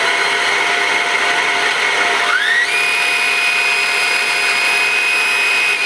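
Shark Rocket corded handheld vacuum running with its motorised floor-nozzle brushroll spinning in the air: a steady whine on the slow hard-floor setting. About two and a half seconds in it is switched to the faster carpet setting, and the whine glides up to a higher pitch as the motor kicks in.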